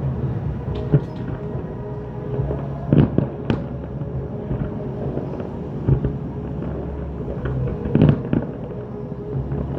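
Aerial fireworks going off in a display: a series of sharp bangs a second or more apart, the loudest about three seconds in and again near eight seconds, over a continuous low rumble.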